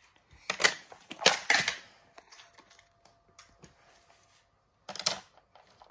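Plastic clicks and clatter from a toy fire truck jump playset and a small die-cast toy car knocking against it: a few sharp knocks in the first second and a half, then another small clatter about five seconds in.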